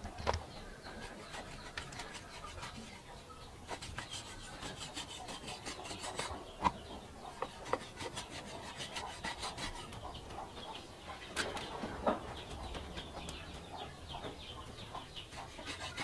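Meat cleaver slicing through raw pork belly on a wooden chopping block: runs of quick rasping strokes as the blade draws through skin and fat, with sharp knocks as it meets the wood.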